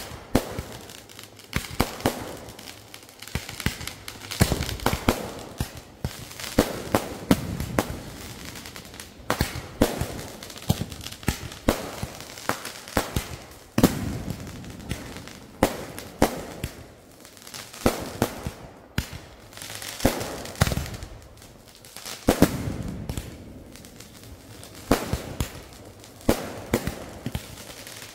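Fireworks display: aerial shells bursting in a dense, irregular run of sharp bangs and crackles, bunched in clusters every second or two.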